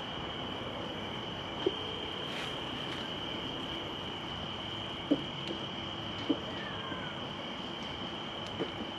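Insects trilling in one steady, unbroken high tone, with three short soft knocks standing out about two, five and six seconds in.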